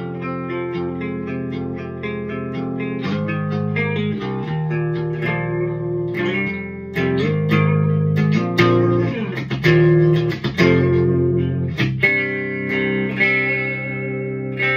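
Electric guitar played clean through a Hiwatt Hi-5 all-tube amplifier's clean channel with the rhythm switch on, chords and single notes ringing out and changing every second or so. The clean tone is bright and sparkly.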